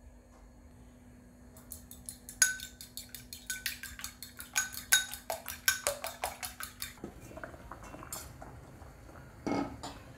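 Fork beating eggs in a ceramic bowl: quick clinks, about five a second, each with a short ring, stopping about seven seconds in. Two brief louder knocks near the end.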